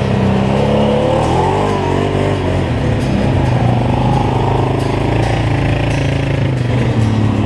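ATV engine running while riding along a trail, its pitch shifting up and down with the throttle.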